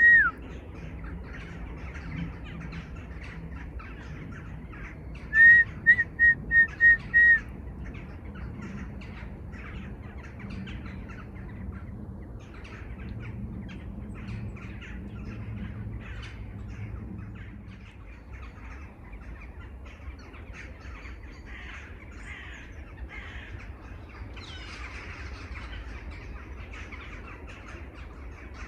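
A dense chorus of many birds calling, with crows cawing among them. About five seconds in, one bird gives a loud, clear whistled call of six or seven quick notes, all on the same pitch.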